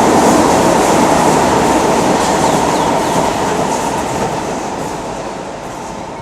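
SMRT North South Line metro train running past on the track, its rumble and wheel noise fading steadily over the last few seconds as it moves away.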